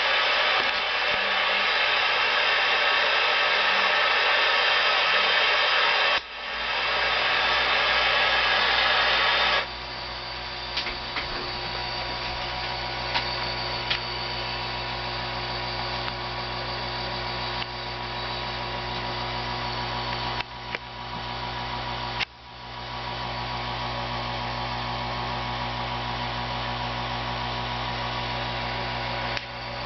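6JE6C sweep tubes under power, with a steady electrical hum and a few sharp, scattered ticks. A loud steady hiss fills roughly the first ten seconds and then drops away.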